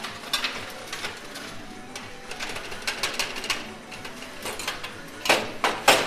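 Coin pusher arcade machine running: metal coins clicking and clinking against each other on the moving pusher shelves, irregular all through, with a thicker run of clinks near the end.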